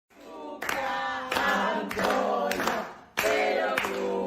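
Singing voices with clapping on a roughly regular beat, starting suddenly and dipping briefly about three seconds in.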